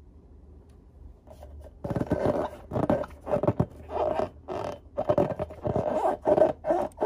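Hands rubbing and squeezing a filled latex balloon: the rubber squeaks and scrapes in short, irregular strokes, starting about two seconds in.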